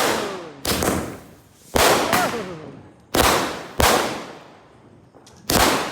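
Diwali firecrackers going off: about six loud, sharp bangs at uneven intervals, two of them close together, each followed by a fading echo.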